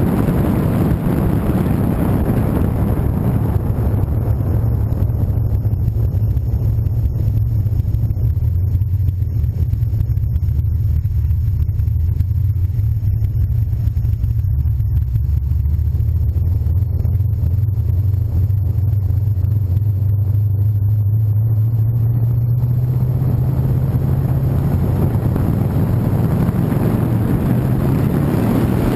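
Car engine running at low, steady revs as the car drives slowly, heard with the car. Wind and road noise fade over the first few seconds and build again near the end as the engine note edges up and the car picks up speed.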